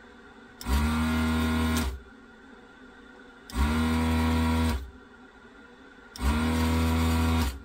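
Vacuum desoldering gun's built-in suction pump buzzing in three bursts of just over a second each, rising briefly in pitch as each starts, as it draws molten solder off circuit-board joints.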